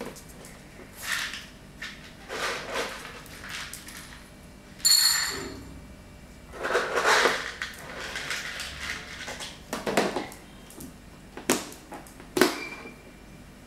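Dry dog kibble scooped from a plastic container and poured into a bowl: several rattling pours, a short ringing clink about five seconds in, then sharp clicks near the end.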